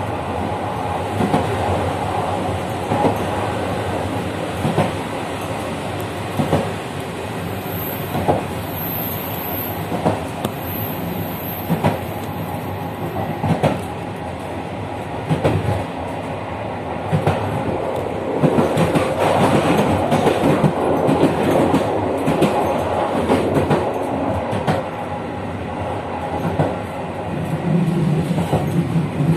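Passenger train running along the track, its wheels clacking over rail joints every second or two under a steady rumble. A faint high whine comes in for a few seconds early in the passage, and a low hum rises near the end.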